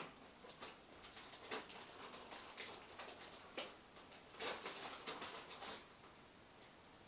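Irregular faint patters and small splashes of water, a dozen or so short ones with gaps between, as fish strike at the surface while hunting.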